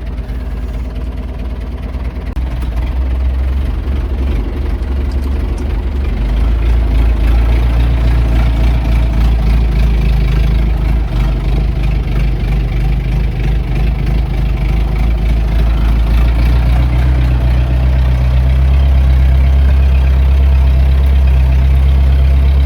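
Tractor engine running as it is driven, its low hum growing louder about two seconds in, again about six seconds in, and once more near the end.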